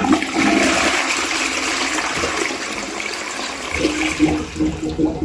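Toilet flushing, the water rushing and draining away. About four seconds in, a rhythmic glugging gurgle from the drain starts: a bubbling the plumber says should not be there, which he puts down to a narrow, flattened rerouted toilet drain pipe that lets water push across into the floor drain.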